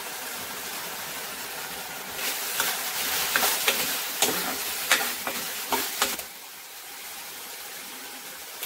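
Tomato and spice masala sizzling in a kadhai on a gas flame. From about two seconds in, a spatula scrapes and clacks against the pan for about four seconds as the masala is stirred, then only the sizzle goes on.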